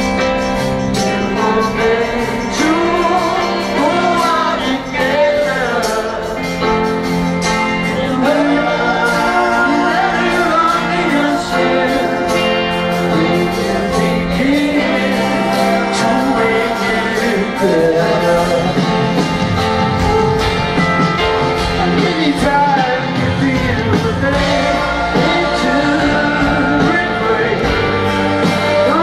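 A live rock band playing through a large outdoor PA, with a lead vocal singing the melody over guitars, bass and drums, heard from out in the festival crowd.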